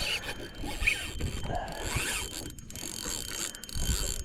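Fishing reel being cranked, its gears and ratchet clicking as line is wound in.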